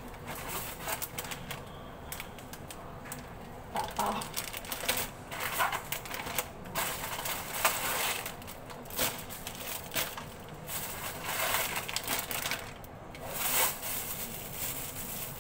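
Thin plastic carrier bags and snack wrappers crinkling and rustling as groceries are taken out and stacked, in short irregular rustles with small knocks of packages set down.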